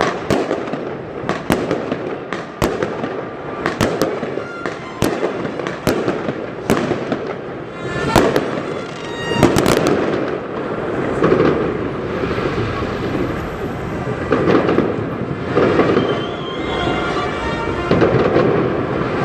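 Fireworks going off: a quick run of sharp bangs, a crackling fizz about eight seconds in, then a denser stretch of overlapping blasts with crackle toward the end.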